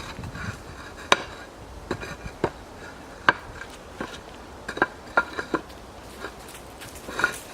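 A dozen or so irregular, sharp knocks and clacks of hard objects striking, some with a brief ring.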